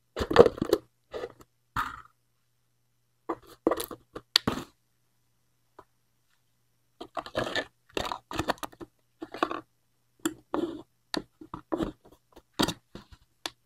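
Short, separate bursts of crunching and scraping plastic: a plastic drink cup and its lid being handled, and a drinking straw pushed into the lid.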